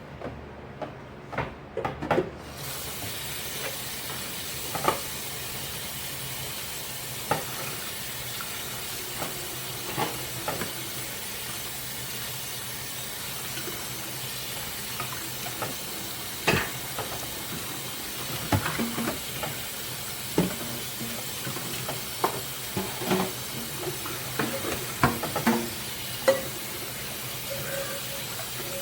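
A tap comes on about two seconds in and water runs steadily into the sink, while dishes clink and knock against each other and the sink now and then.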